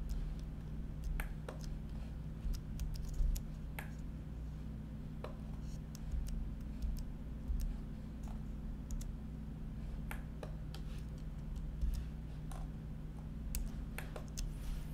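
Computer keyboard and mouse clicks, scattered and irregular, over a steady low hum.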